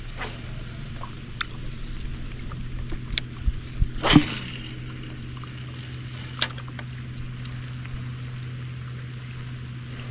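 Steady low hum aboard a fishing boat, with scattered clicks and knocks of handled gear; the loudest knock comes about four seconds in.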